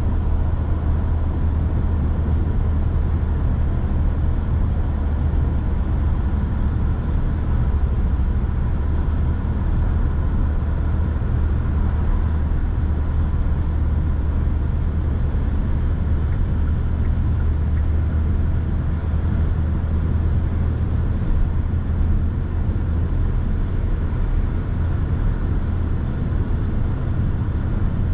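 Steady low rumble of a 2023 Kia Sorento Hybrid driving along: road and tyre noise with an even low drone and no changes in pace.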